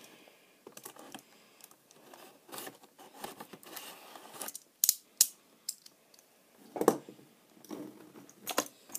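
A cardboard model-car box being handled and opened by hand, with light rustling and scraping, a couple of sharp clicks a little before the middle and a louder knock a couple of seconds later.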